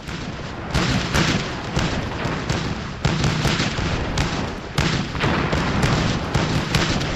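A rapid, irregular series of bangs and booms over a continuous crackle, two or three sharp hits a second, fading in over the first second.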